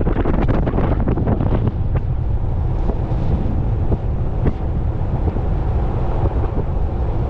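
Wind buffeting the microphone: a loud, steady low rumble, with a run of crackling ticks in the first couple of seconds.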